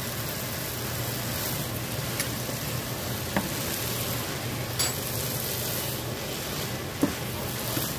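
Quinoa and vegetable stir-fry sizzling in a nonstick skillet as it is stirred. A utensil clicks sharply against the pan four times.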